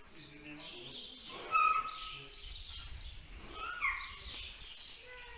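Small birds chirping in a few short calls, the loudest about one and a half seconds in and another near four seconds.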